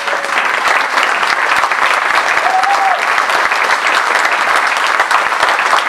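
Concert audience applauding steadily after the piece ends, with one short call rising above the clapping about two and a half seconds in.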